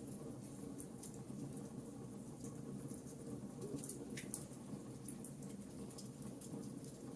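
Wood fire in a fireplace crackling: scattered small pops and ticks over a steady low rumble.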